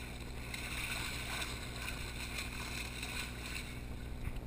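A fishing boat's engine running steadily at low speed, with water splashing against the hull where a billfish is held alongside.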